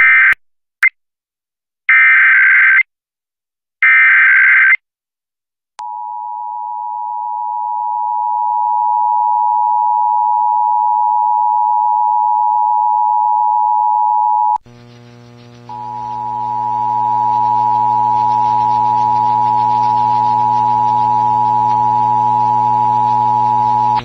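Emergency Alert System Required Monthly Test on an FM station's stream: three short screeching bursts of SAME digital header data, then the steady two-tone attention signal. The attention signal drops out briefly about halfway through and comes back with a low hum underneath.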